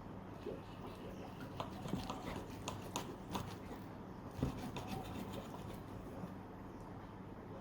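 Scattered light clicks and taps, with some rubbing, from small objects being handled, over a faint steady hum. The louder knocks come about two, three and four and a half seconds in.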